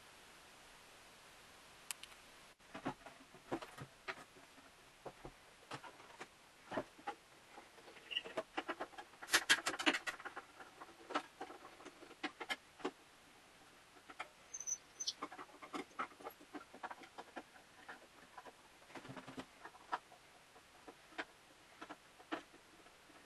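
Hand tools working on a wooden table top: irregular small clicks, taps and scrapes of a screwdriver and hands on wood, with a denser clatter about nine seconds in.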